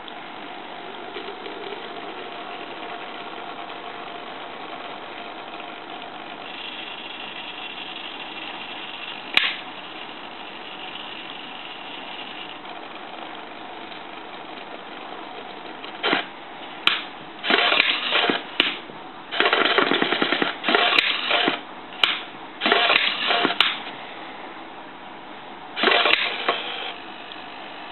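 A useless box's small motors buzzing and rattling in a run of short bursts as its lid lifts and jitters and the arm pushes out toward the toggle switch. A single sharp click comes about a third of the way in, and one more motor burst near the end.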